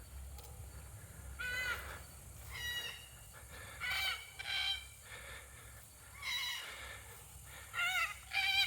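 Red-tailed black cockatoos calling from a tree: a series of loud, harsh, bending calls, about seven in all, coming a second or so apart.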